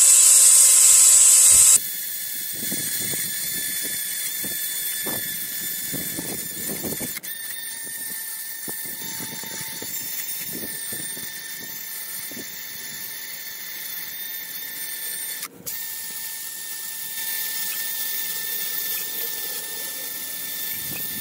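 Cordless drill spinning a wire brush: a loud high whine as it runs free, then from about two seconds in it is pressed against a rusty brake caliper, scrubbing and scraping the rust off. It stops briefly and starts again about three quarters of the way through.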